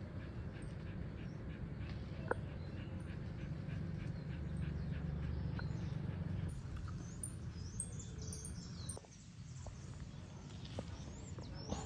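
Dog panting close to the microphone, a steady rough breathing that quietens about three-quarters of the way in.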